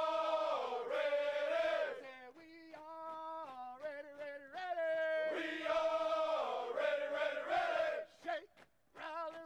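Background music: voices singing a slow melody in long held notes that step from pitch to pitch, with short breaks between phrases.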